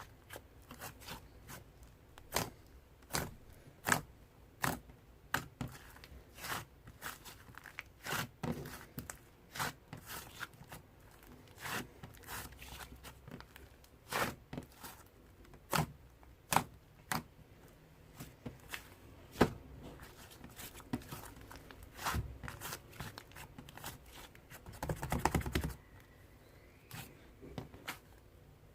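Mixed slime being squeezed and pressed by hand, giving irregular sharp pops and clicks about one or two a second. Near the end there is a quick run of crackling pops.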